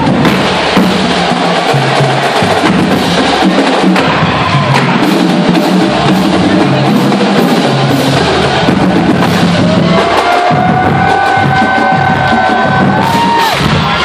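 College marching band playing loudly, with the drums keeping a steady beat and low brass underneath. Higher brass notes are held from about ten seconds in.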